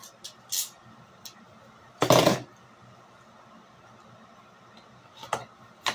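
A few scattered light clicks and clinks, with one brief louder clatter about two seconds in.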